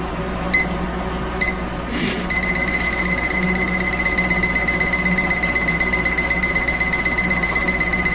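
Digital kitchen timer: two single beeps as its buttons are pressed, a short clatter, then a fast, continuous beeping alarm from about two seconds in.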